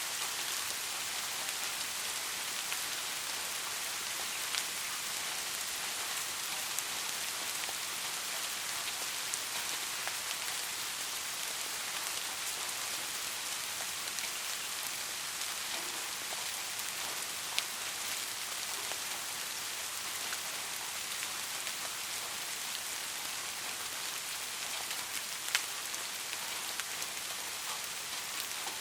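Steady rain, with individual drops ticking sharply on a surface here and there; no thunder.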